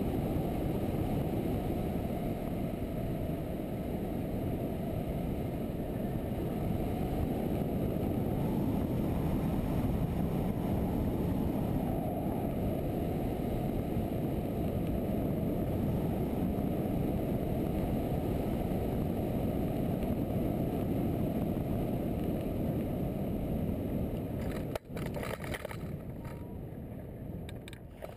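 Steady rush of airflow over a hang glider's wing-mounted camera in gliding flight, wind buffeting the microphone with a dull, low noise. Near the end it drops suddenly and turns thinner and quieter as the glider comes in low to land.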